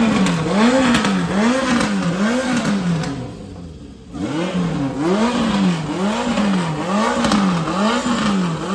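Motorcycle engine revved loud in quick, even throttle blips, its pitch rising and falling about twice a second; the revving drops away for about a second a little after three seconds in, then starts again.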